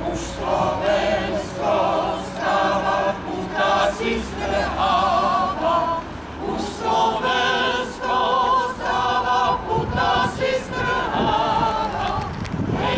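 Mixed choir of men and women singing a hymn-like song unaccompanied, in short phrases with brief breaks between them.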